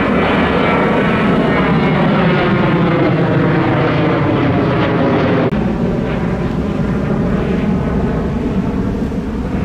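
Jet engines of a Boeing 737 airliner climbing out overhead after takeoff, loud and steady, with the tone sweeping downward as it passes. About five and a half seconds in, the sound cuts abruptly to a similar, slightly quieter jet airliner engine sound.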